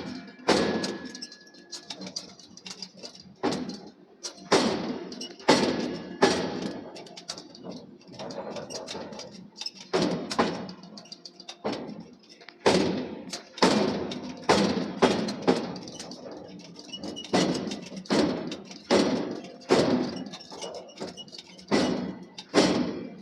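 Heavy thuds of steel being forged, struck at irregular intervals of roughly one a second.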